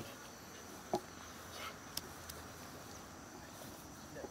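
Quiet outdoor ambience with a steady, high, thin insect drone and a couple of faint clicks.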